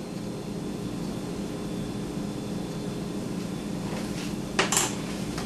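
Steady low hum of kitchen machinery with a few faint steady tones. Near the end come two short sharp knocks of kitchen items being handled.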